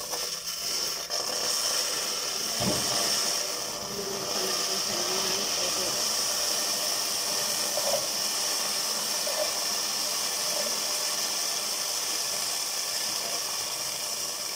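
Water poured from a kettle into a hot, oil-free pot on a gas stove, setting off a sudden loud hiss of steam that carries on steadily as the water seethes in the pot. A single low knock about three seconds in.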